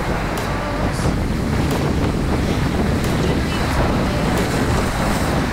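Steady wind buffeting the microphone over the rush of sea water around a boat.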